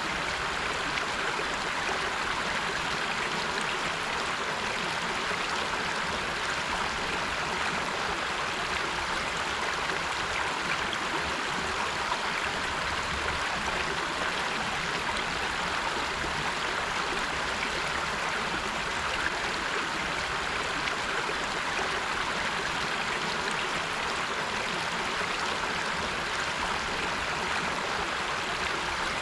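River water rushing steadily over rocks, a constant even flow.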